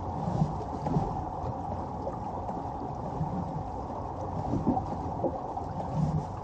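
Small motorboat's engine running at low, idle speed as the boat creeps forward: a steady, muffled low sound with water moving around the hull.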